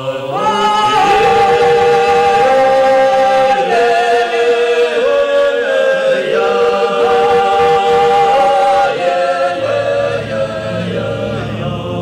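A choir singing a slow, unaccompanied song in long held notes that change every second or two.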